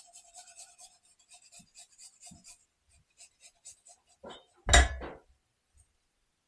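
A garlic clove being grated, quick rasping strokes about six a second that thin out after a couple of seconds, then one loud knock.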